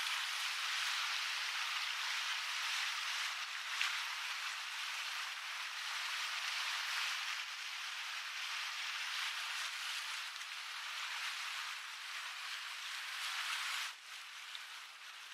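Steady rushing hiss of wind and water noise on a small boat under way, thin and without any low rumble. It drops off sharply about 14 seconds in.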